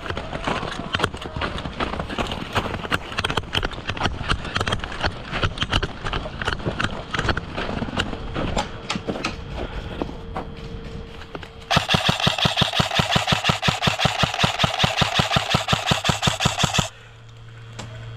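A player moving through the field with irregular steps and knocks of gear for about the first two-thirds, then a sustained rapid-fire burst from an airsoft gun, fast even clicks lasting about five seconds and stopping abruptly.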